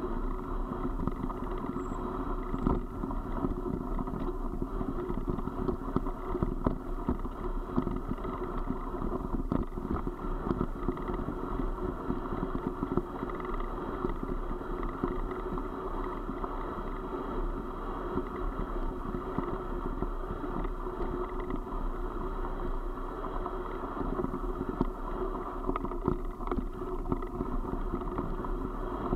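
Wheels rolling fast down a loose gravel track: a steady rumbling ride noise with frequent small clicks and knocks from stones and bumps, and some wind on the microphone.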